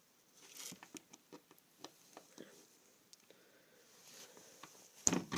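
Faint, scattered clicks and scrapes of a flathead screwdriver working metal prongs into a plastic connector housing, with one sharper knock about five seconds in.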